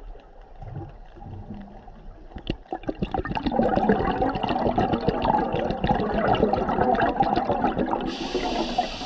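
Scuba diver's exhaled bubbles from a regulator, a dense crackling bubbling noise that starts about two and a half seconds in and runs for several seconds. A steady high hiss comes in near the end.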